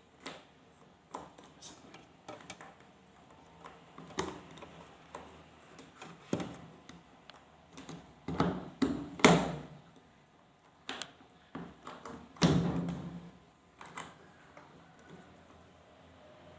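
Irregular clicks, taps and knocks of hands working on a washing machine's control module and its plastic housing. The two loudest knocks come about nine and twelve and a half seconds in.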